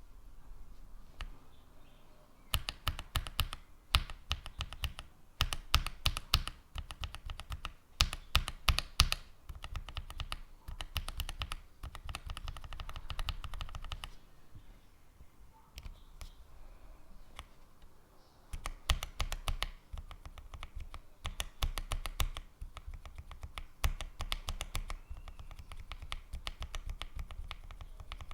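Typing on a mechanical keyboard with Kailh Box-series linear switches. The keystrokes come in quick bursts of clicks and clacks, each a second or two long, with short pauses between bursts.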